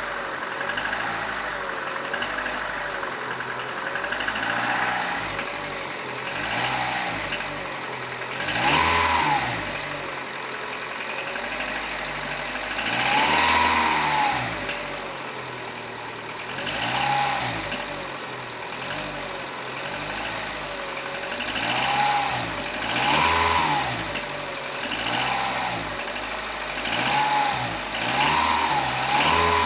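Volkswagen AZD 1.6-litre four-cylinder petrol engine running and revved repeatedly in short blips, each rising and falling back to idle. It has a knock whose cause is not known.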